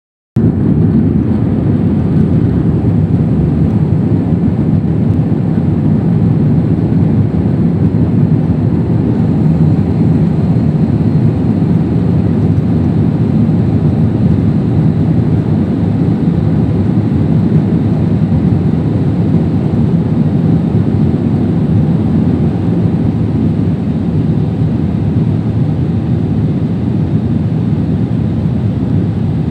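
Jet airliner cabin noise during the climb after takeoff: a steady, loud roar of engines and rushing air, heard from inside the cabin by a window.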